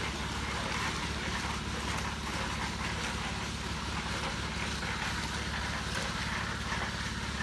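An engine running steadily at a constant speed, a low even drone with a fast regular pulse.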